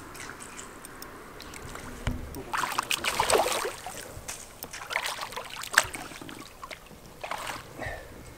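Hooked largemouth bass thrashing and splashing at the water's surface beside the boat in several bursts, the biggest splashing about three seconds in.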